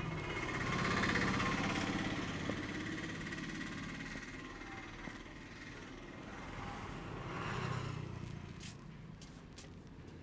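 Street traffic: passing road vehicles, swelling about a second in and again near eight seconds, with a few faint clicks near the end.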